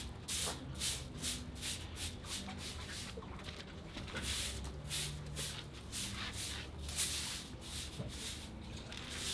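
Stiff palm-bristle broom sweeping a concrete floor with quick, repeated scratchy strokes, about three a second.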